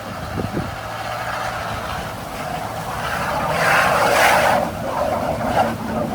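Off-road vehicle pushing through creek water, its engine running hard while the wheels churn and splash. The loudest surge of churning comes about four seconds in.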